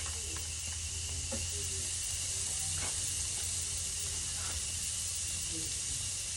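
Bacon-wrapped deer backstrap poppers sizzling on a too-hot grill: a steady hiss with faint pops now and then.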